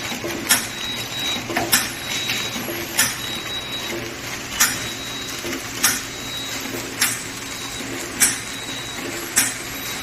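Nitrogen-flush sealing machine running in a steady cycle: a sharp click about once every second and a quarter over a continuous mechanical hum.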